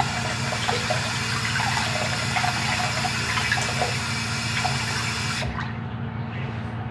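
Water running from a sink tap, cut off abruptly about five and a half seconds in.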